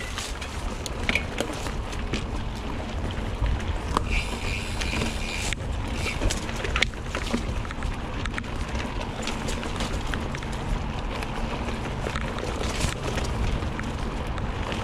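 Mountain bike ridden along a dirt woodland trail: steady wind rumble on the microphone, with the bike's frame and parts rattling in frequent short clicks and knocks over the rough ground.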